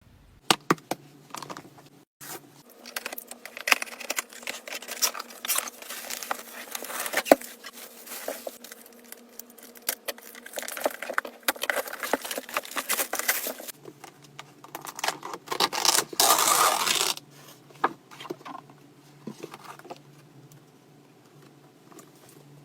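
Packaging being opened and handled: a run of crinkling, tearing and small clicks, with a longer, louder stretch of tearing about sixteen seconds in.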